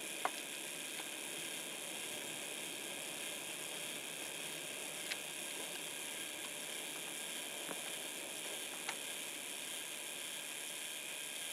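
Model OO-gauge Adams Radial tank locomotive running steadily on a rolling road: a quiet, even whir of its electric motor and gears, with a few faint clicks.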